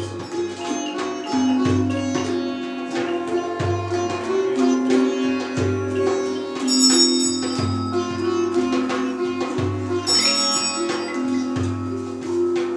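Sitar playing an improvised melody over sustained low drone notes, with a deep drum beat about every two seconds. Bright chiming sounds come in twice, about midway and near the end.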